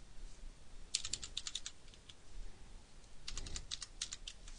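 Keys tapped on a computer keyboard in two short, quick bursts, one about a second in and another a little past three seconds.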